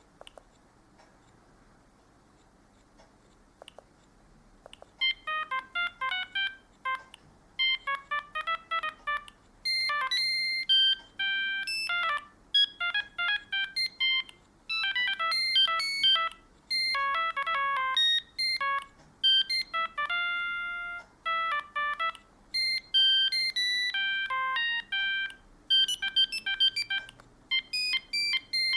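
Siemens M65 mobile phone's built-in ringtones previewed one after another: short electronic melodies of quick beep-like notes, each cut off after two or three seconds as the next one starts. The melodies begin about five seconds in, after a stretch of faint clicks.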